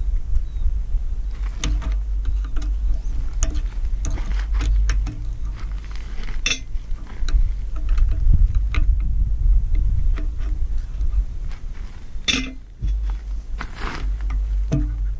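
Scattered metallic clinks and knocks from hand work on a mini excavator's hydraulic boom ram and its pin, with two louder knocks about halfway and near the end. Wind rumbles on the microphone throughout.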